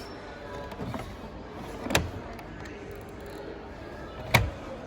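Two sharp knocks, about two and a half seconds apart, with a smaller one before them, over a steady background hum.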